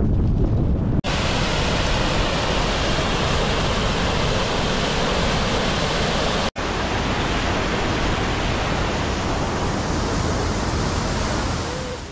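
Wind buffeting the microphone for about a second, then, after a cut, the steady rushing of muddy floodwater pouring over a concrete ledge. A second cut about six and a half seconds in brings more of the same steady rushing noise, which fades out at the end.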